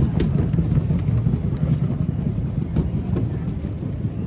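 Airport terminal ambience: a steady low rumble with a few faint clicks over it.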